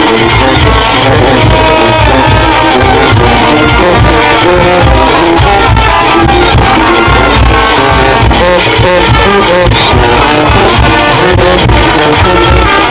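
Junkanoo band practising: a brass section of trumpets, trombones and sousaphones plays a tune together over a steady beat on large goatskin barrel drums. Very loud, with no let-up.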